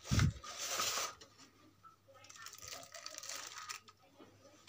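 Thin plastic bag crinkling and rustling inside a plastic food tub while a spoon digs into the soft food, in two spells: about the first second and again about halfway through. A dull thump right at the start.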